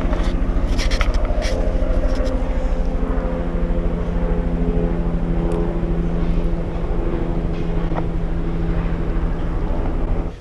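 A steady engine drone over a low rumble, with one held pitch, stopping abruptly at the end.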